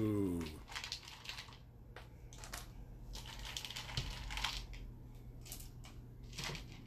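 Chocolate chips being picked out of a plastic bowl and dropped by hand into a pot of cake batter and pudding, making light, irregular clicks and rustles.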